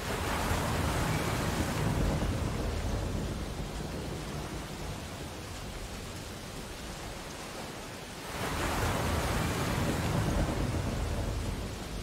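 Sea surf breaking and washing in twice. The first wave surges at the start and fades over a few seconds; the second builds about eight seconds in and ebbs near the end.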